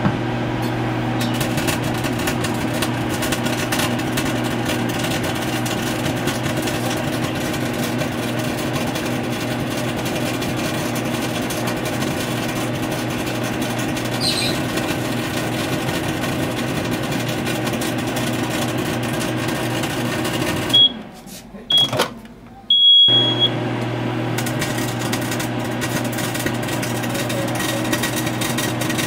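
Microwave oven running with broken flood-lamp bulbs glowing with plasma inside, its transformer and magnetron giving a steady electrical hum. About 21 seconds in the hum cuts out, there are a few clicks and short high keypad beeps, and the oven starts up again about two seconds later.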